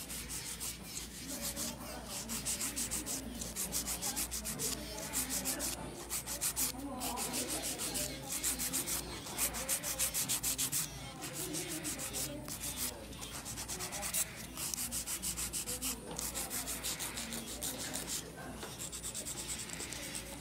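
Hand-held nail file rasping back and forth across long acrylic stiletto nails in quick strokes, about four a second, as the nails are shaped.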